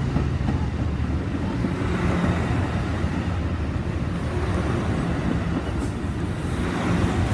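Amtrak Pacific Surfliner bilevel passenger cars rolling past close by, a steady loud rumble of wheels on the rails.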